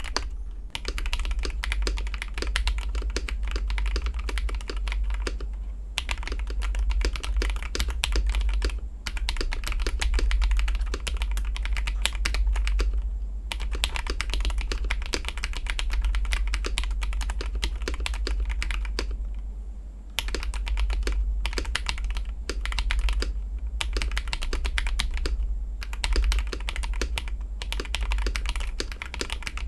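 Continuous typing on a KBD67 Lite R2 mechanical keyboard fitted with AKKO CS Radiant Red linear switches and AKKO cherry-profile keycaps: rapid key clacks with a few short pauses. A steady low hum runs underneath.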